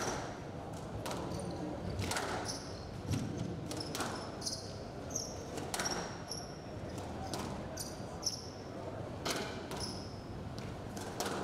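Squash rally: the ball cracks off rackets and the court walls about once a second, with shoes squeaking on the court floor in short high chirps between the hits.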